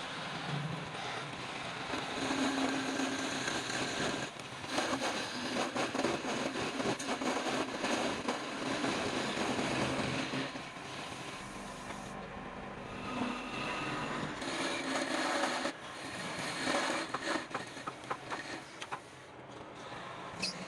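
Woodworking noise: a power tool and scraping on wood, uneven and gritty, easing off briefly several times.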